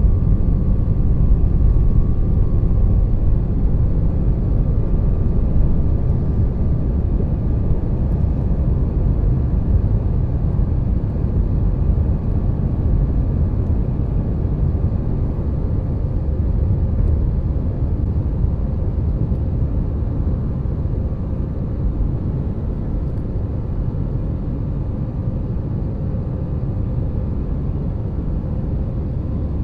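Airbus A320 jet engines at takeoff power, heard inside the cabin from a window seat over the wing: a steady, deep rush of engine and air noise as the airliner leaves the runway and climbs. The noise eases slowly in level as the climb goes on.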